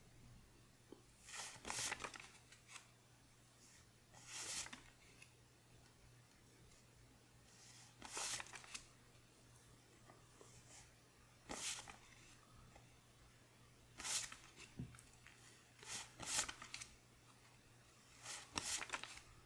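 Paper one-dollar bills being slid one at a time off a handheld stack, a brief crisp paper rustle every two to three seconds.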